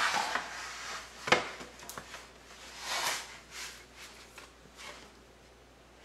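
Parchment paper rustling and sliding as a sheet of rolled-out cookie dough on it is laid into a rimmed metal baking sheet, with a single light knock a little over a second in.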